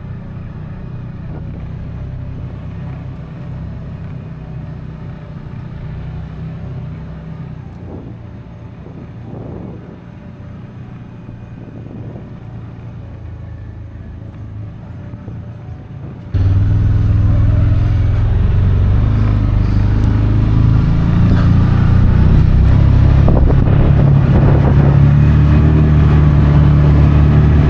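ATV engine running with a steady low hum as the vehicle moves slowly. About sixteen seconds in, the sound jumps suddenly much louder: the engine at higher speed over rushing air as it drives fast across the field.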